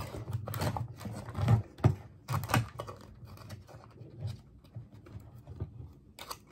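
Foil lid being peeled off a small plastic dessert cup, with irregular crinkling and scratchy clicks of the foil and plastic, the louder ones in the first few seconds.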